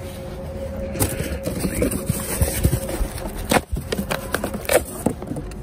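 Tissue paper crinkling and rustling as it is pulled out of packaging. Irregular crackles start about a second in, over a faint steady hum.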